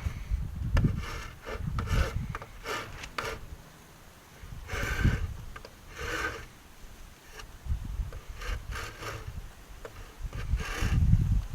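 A hand tool scraping across wood in irregular back-and-forth strokes, with a short pause about four seconds in.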